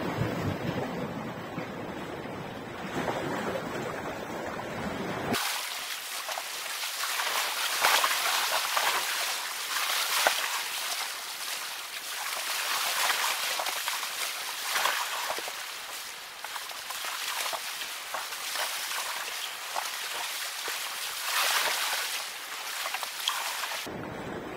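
Small sea waves washing and splashing against shoreline rocks in irregular surges. For the first five seconds a low wind rumble on the microphone dominates, then the sound changes abruptly to the hissing wash of the water, and the low rumble returns near the end.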